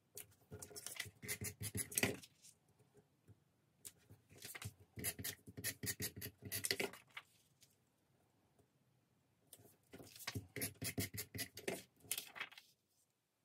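Sheets of paper and cardstock being handled and slid across a scrapbook layout, in three spells of scratchy rustling with short quiet gaps between.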